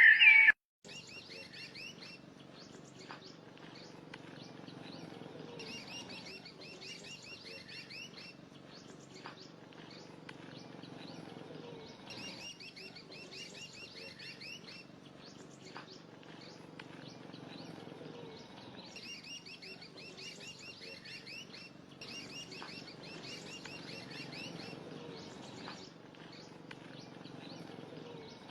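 A small songbird chirping in repeated quick twittering phrases every few seconds, over a steady low background noise.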